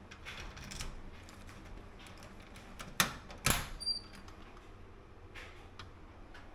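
Key scraping and turning in a small shoe locker's lock, then a sharp click about three seconds in and a second click with a brief metallic ring as the latch releases and the locker door swings open.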